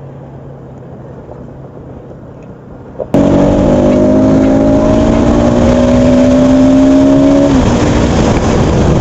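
Bajaj Pulsar NS200's single-cylinder engine, at first a quiet steady hum, then about three seconds in suddenly much louder with heavy wind rushing on the microphone. Under acceleration its note climbs slowly, then drops away near the end as the throttle comes off, leaving the wind noise.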